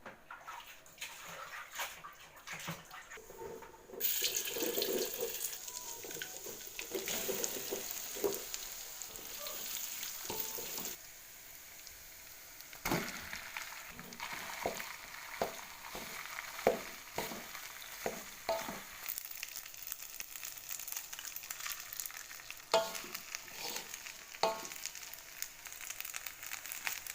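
Food frying in hot oil in a pan, a steady sizzle that gets much louder about four seconds in and eases off near the middle. From there on it is stirred, with repeated short knocks and scrapes of a utensil against the pan.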